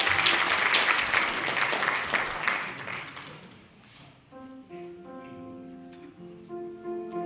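Audience applauding, fading out about three seconds in. Instrumental music then starts with a few held notes.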